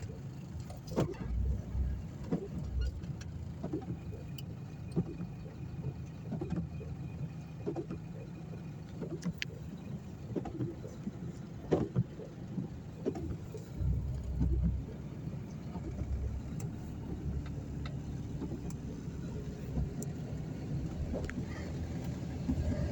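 A motor vehicle's engine runs with a steady low rumble, with scattered small clicks and knocks and a few low thumps, about a second in and again around the middle.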